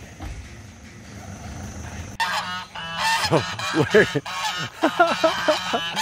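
A flock of domestic geese honking: many overlapping calls that start suddenly about two seconds in and keep going.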